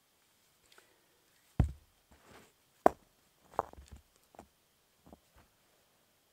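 Rocks being set down by hand to build a stone fire-pit ring: a heavy thud of a stone dropped onto the dirt about a second and a half in, then a sharp knock of rock against rock, followed by a few lighter knocks and scrapes.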